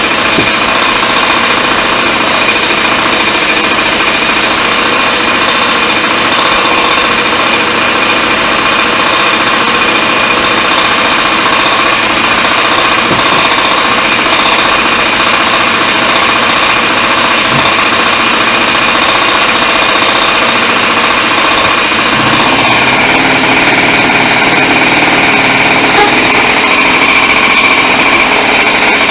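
Honda Dio 18 scooter's small two-stroke engine running continuously and steadily, with a rattly, buzzing note; the note changes slightly about three-quarters of the way through.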